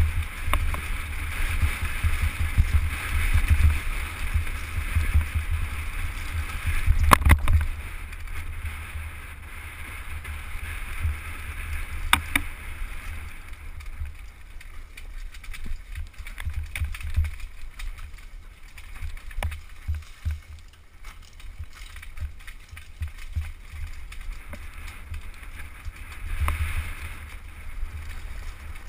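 Mountain bike descending a rough dirt trail: wind buffeting the bike-mounted camera's microphone, with tyres on dirt and the bike rattling over the ground, and a few sharp knocks as it hits bumps.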